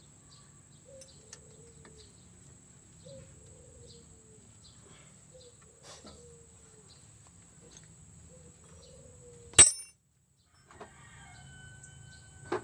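A chicken clucking, short low calls falling in pitch about once a second, over faint metallic ticks of spanner work. One loud sharp click comes near the end, followed by a second of silence.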